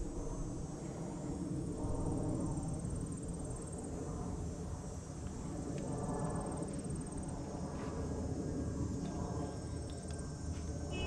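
Insects trilling in repeated high-pitched bouts of a second or two, over a steady low rumble, with a few faint clicks in the second half.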